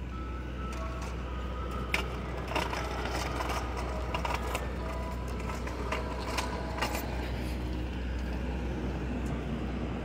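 Ice cream truck's engine idling, a steady low hum, with scattered clicks and scuffs of footsteps on pavement.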